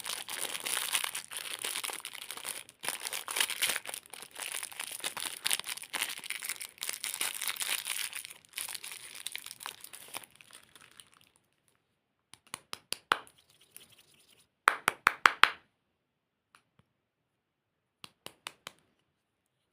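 Candy wrappers and plastic packaging crinkling and tearing as they are handled and opened, continuous for about ten seconds. After that come a few short clusters of sharp clicks and snaps, with quiet between them.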